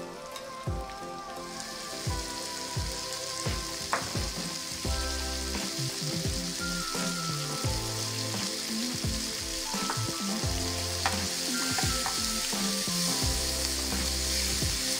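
Chopped kimchi sizzling as it stir-fries in oil in a frying pan, the sizzle getting louder about a second and a half in, with a few sharp clicks as it is stirred.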